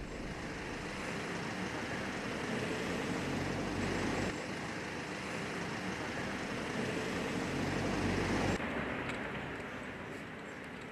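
Outdoor street ambience: a steady hum of road traffic, changing abruptly about four and eight and a half seconds in.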